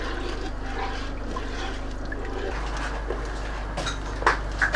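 Hot vinegar pickling brine bubbling in the steel inner pot of an electric pressure cooker while a wooden spoon stirs it, with a few light knocks near the end.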